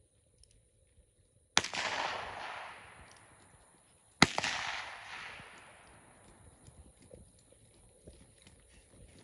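.22 handgun fired twice from horseback, about two and a half seconds apart, each report trailing off over a second or two.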